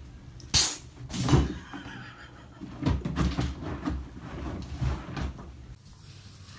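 A series of irregular knocks and thumps: a sharp knock about half a second in, a louder one just after a second, then clusters of duller thumps.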